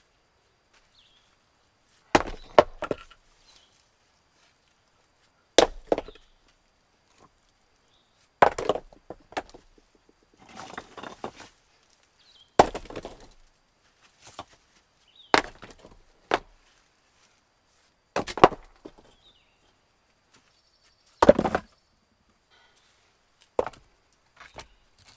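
Wood being chopped: single sharp blows with a short splintering crackle after each, roughly every three seconds.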